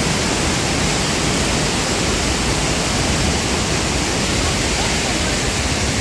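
Steady rush of a mountain waterfall's cascade pouring over boulders.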